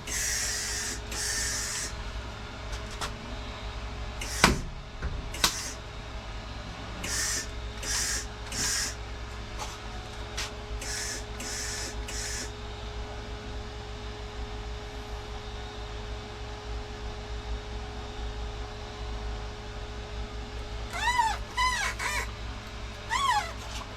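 MIG welder laying plug welds on a truck cab mount: a run of short hissing bursts, each under a second, over the first dozen seconds, with two sharp knocks between them.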